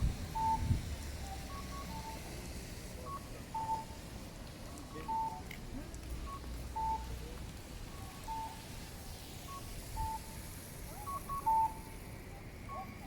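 Two-note electronic pedestrian-crossing signal, a short higher beep then a longer lower one, repeating about every 1.6 s while the crossing is open to walkers.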